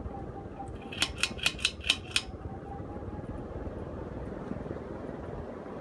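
A 1980s Moss WF Series 42-inch four-blade ceiling fan running with a steady whoosh of air and a faint motor hum that fades out about three seconds in. About a second in comes a quick run of six sharp clicks, about five a second.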